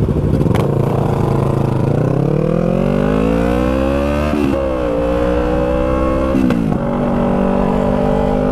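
2019 Yamaha R3's parallel-twin engine under way: it holds a steady pitch, then climbs in pitch for about two seconds as it accelerates. It breaks and drops at an upshift about halfway through, then drops again at a second shift a couple of seconds later and settles into a steady run.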